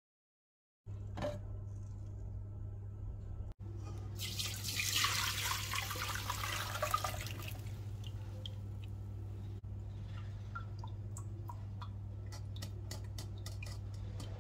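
Chicken broth poured from a pot through a metal mesh sieve of boiled vegetables, splashing for a few seconds, then dripping from the sieve in a run of small drips near the end.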